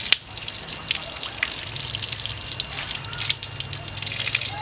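Tap water running and splashing over a large knife blade and onto wet ground as the blade is rinsed, a steady spattering. A single sharp click sounds just after the start.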